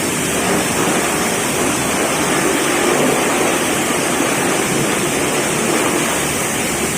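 Pressure-washer jet spraying water onto a motorcycle during a service wash: a loud, steady hiss of water spray.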